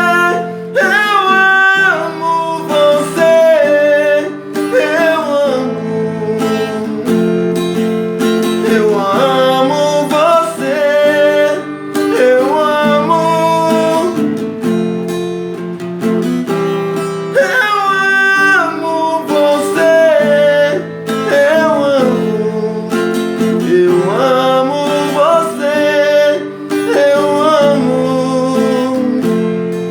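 Acoustic guitar strummed as accompaniment in a sertanejo ballad, with a voice singing a gliding melody over it.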